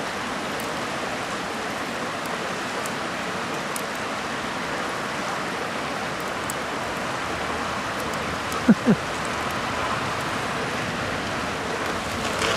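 Wood campfire burning in a fire pit: a steady hiss with scattered faint crackles. Two quick squeaky sounds come close together about two-thirds of the way through.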